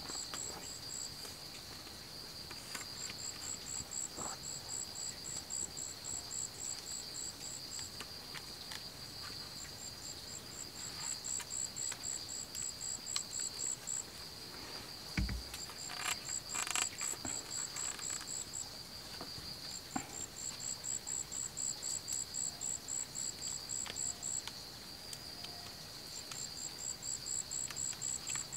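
Insects calling in the forest: a steady high-pitched buzz throughout, with a second insect's rapid pulsed chirping coming in trains of a few seconds with short pauses. About halfway through there is a soft thump, followed by a few brief crackling handling noises.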